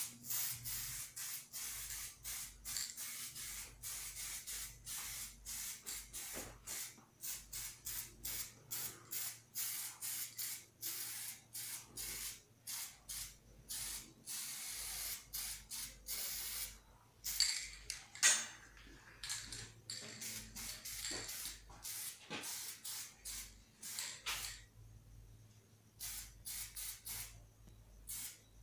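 Aerosol can of clear acrylic enamel spraying in many short hisses, about two a second, with a brief pause a little before the end.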